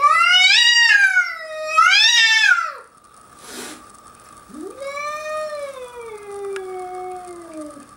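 Cat yowling, a threat call at another cat across a glass door. There are two long, wavering yowls: the first rises and falls twice over about three seconds, and the second begins about halfway through, rises, then slowly sinks in pitch.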